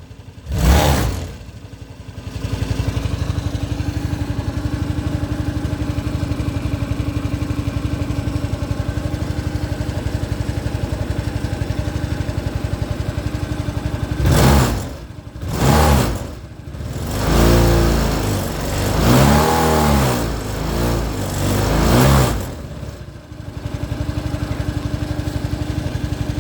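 Honda CN250 Helix scooter's single-cylinder engine idling steadily, then blipped a few times and revved up and down in several longer sweeps before settling back to idle. The owner fears the noise and vibration mean engine damage.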